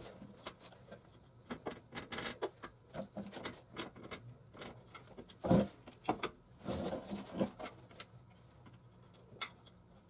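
Socket ratchet clicking in short runs as the brake caliper mounting bolts are run back into the steering knuckle, with a heavier metallic knock about five and a half seconds in.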